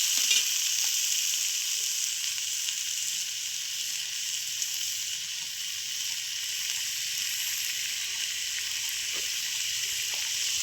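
Taro leaves frying in hot oil in a pan, a steady sizzle.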